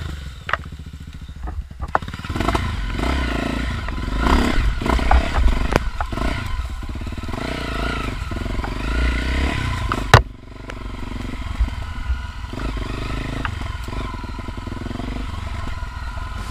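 Off-road dirt bike engine running and revving unevenly as it rides a rough trail, with scattered clattering knocks and one sharp loud knock about ten seconds in.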